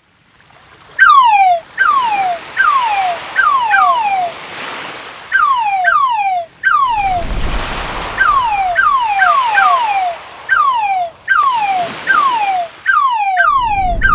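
Cartoon-style crab sound effect: short squeaky chirps, each gliding down in pitch, repeated in quick irregular runs of about one and a half a second, starting about a second in, over the wash of surf swelling and fading.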